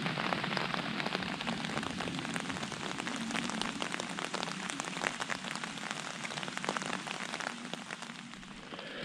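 Steady rain falling on a fabric umbrella canopy overhead, the drops making many small, close taps.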